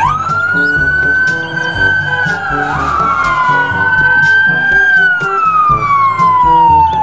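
Police car siren wailing: a slow wail that climbs quickly, holds high, then slides slowly down, twice over.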